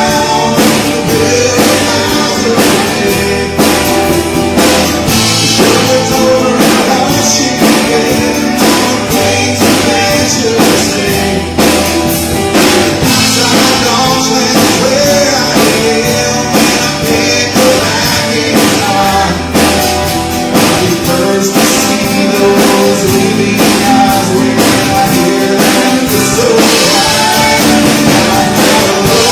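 Live band playing a rock song, with a steady drum beat under guitar and other instruments.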